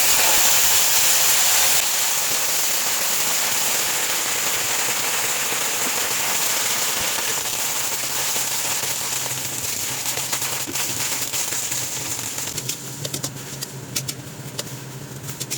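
Food going into a hot frying pan, sizzling loudly at once, then settling into steady sizzling with sharper crackles and pops in the last few seconds.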